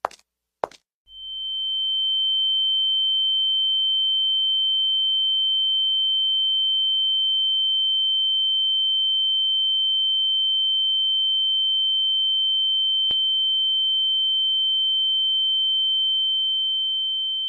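A short click, then a steady, high-pitched electronic pure tone that holds one pitch without a break, with a single sharp click partway through and a slow fade near the end.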